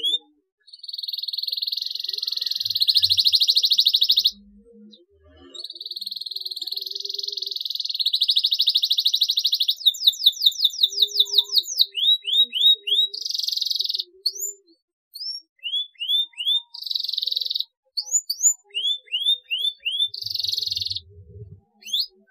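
Domestic canary singing: two long, fast trills, then runs of quick rising chirps broken by short trills.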